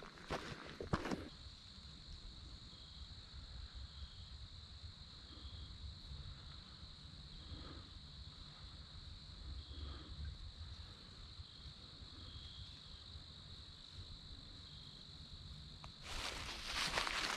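Insects trilling in a steady, high-pitched chorus. Footsteps crunch on dry leaves on the trail during the first second, then start again near the end.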